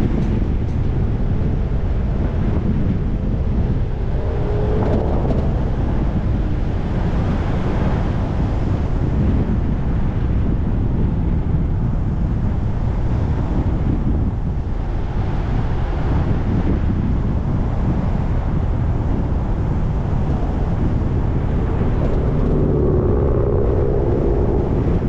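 A car driving along a road: steady low rumble of road and wind noise. A faint humming tone comes in briefly about four seconds in and again near the end.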